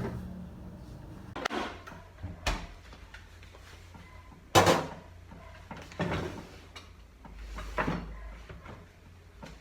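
A string of separate knocks and clinks from a glass, a jug and ice being handled on a counter, with the loudest knock about four and a half seconds in and a longer scraping sound near the end.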